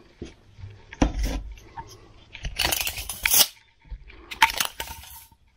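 Steel bricklaying trowel knocking and scraping on firebrick and mortar: a sharp knock about a second in, a scrape lasting under a second near the middle, and another knock near the end.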